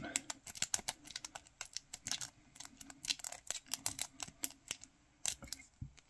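City rake being raked in the keyway of a small TSA travel padlock: a run of quick, irregular metallic clicks and ticks as the pick scrapes over the pins, stopping shortly before the end. The lock stays shut.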